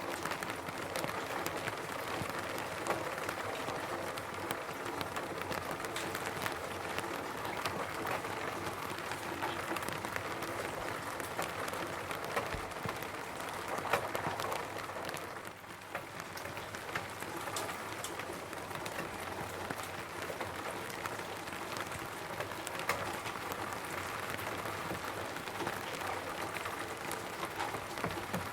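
Rain falling steadily on a roof, individual drops pattering as many small clicks over an even hiss, easing briefly about halfway through.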